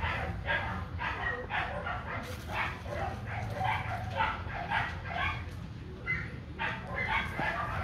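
A dog barking and yipping in rapid, repeated short barks, two to three a second, over a steady low hum.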